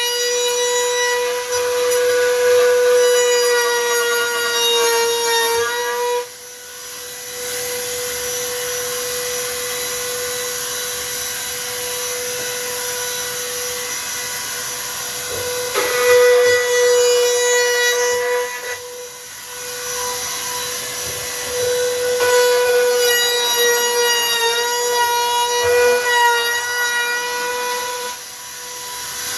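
A power tool's electric motor running at a steady high pitch in long runs, with brief stops about six seconds in, near the middle and near the end, its tone wavering slightly as it works under load.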